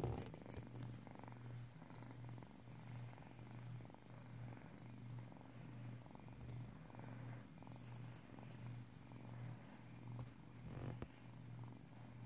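Kitten purring steadily while being stroked under the chin, the purr swelling and fading with each breath about once a second.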